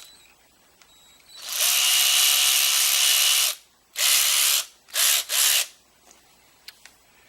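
VonHaus 12V lithium-ion cordless 3/8-inch electric ratchet wrench running free: one steady run of about two seconds, then three short trigger bursts.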